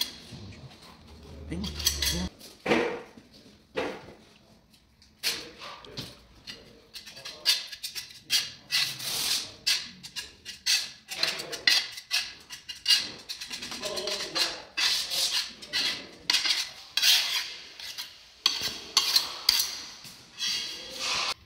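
Irregular clinks, knocks and scrapes of hand tools against hard surfaces, coming in quick uneven bursts with short pauses, as in tiling work.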